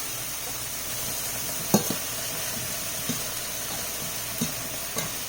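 Food sizzling steadily in a frying pan, with a spoon knocking and scraping against the pan a few times; the sharpest knock comes a little under two seconds in.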